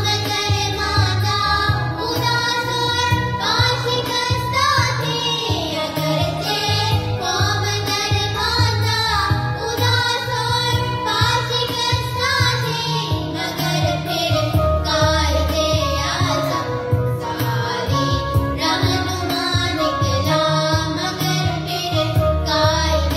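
Children's voices singing an Urdu Pakistani national song (milli naghma) over instrumental backing with a steady low beat.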